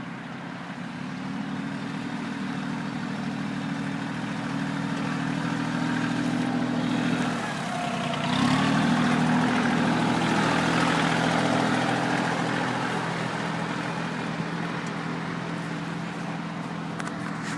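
Kioti CK2810 compact tractor's three-cylinder diesel engine running, growing louder over several seconds. A little past halfway it briefly drops, then picks up louder again and slowly fades.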